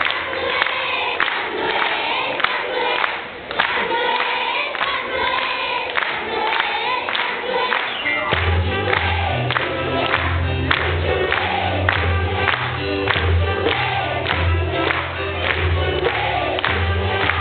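Children's choir singing an upbeat song with instrumental accompaniment and a steady beat; a strong bass line comes in about eight seconds in.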